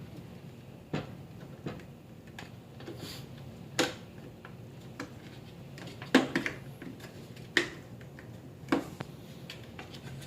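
Plastic housing of a Caravel lever espresso machine being worked back into place by hand: irregular sharp clicks and knocks of plastic against the machine, about six louder ones, over a faint steady hum.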